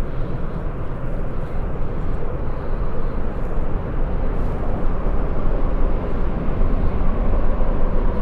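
Steady low rumble of traffic crossing the bridge overhead.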